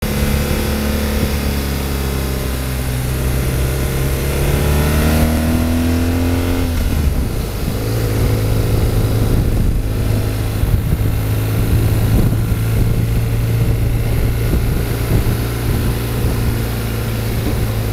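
Motorcycle engine running at road speed under a rush of wind noise. Its pitch climbs from about four to seven seconds in, shifts abruptly, then holds steady.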